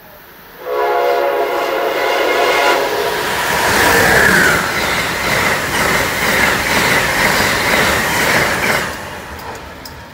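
Amtrak ACS-64 electric locomotive's horn sounding one chord-like blast of about two seconds, then the train rushing past at speed, its wheels on the rails, fading out near the end.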